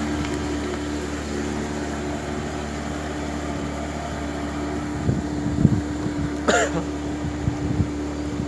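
Small wooden boat's motor running at a steady speed, a constant even hum. From about five seconds in, a few irregular low knocks sound over it, and a brief sharp sound comes about six and a half seconds in.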